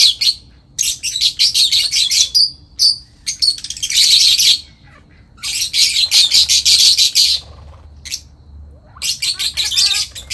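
A songbird singing loudly and close, in repeated phrases of rapid chirping notes, each phrase about a second and a half long with short pauses between, plus a couple of single chirps.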